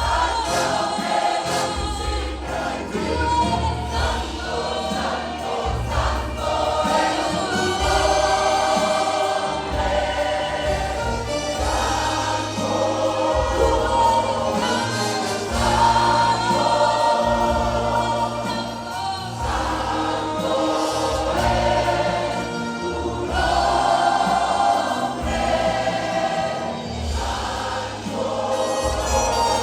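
A choir singing a Spanish-language worship song with band accompaniment, a bass line moving under the voices.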